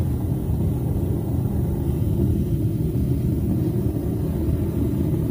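Propane burner of a small 6 kg stainless-steel melting furnace running steadily at full flame, an even low rumble of burning gas.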